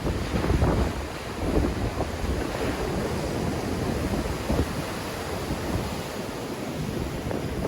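Sea waves breaking and washing on the shore in a strong wind, with gusts buffeting the microphone as low rumbles.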